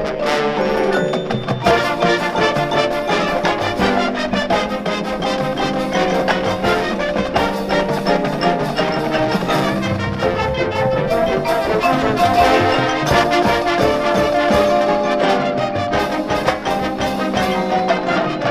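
High school marching band playing live in a stadium: brass (trumpets, trombones) with front-ensemble mallet percussion such as marimba and xylophone, over regular percussion hits. The mallets carry the opening moment and the low brass fills in about a second and a half in.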